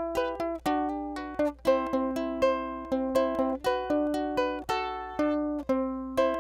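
Background music: plucked ukulele strumming and picking chords, notes sharply attacked and dying away several times a second.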